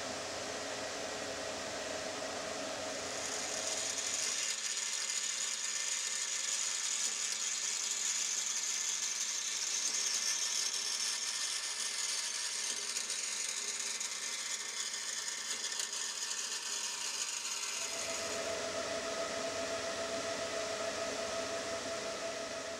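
Metal-cutting band saw running and cutting through a thin welded metal plate: a steady hissing whine from about four seconds in until near the end, with a faint tone slowly falling in pitch late in the cut. Before and after the cut there is a steadier, lower hum.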